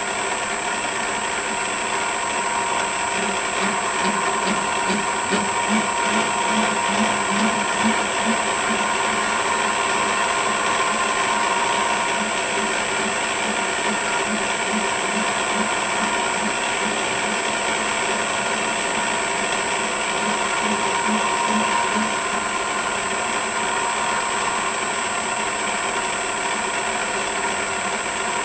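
VFD-driven metal lathe running with its gears whirring and a steady high whine, while a parting tool cuts a thread-relief groove in a steel tee-bolt blank. A pulsing of about three beats a second comes and goes.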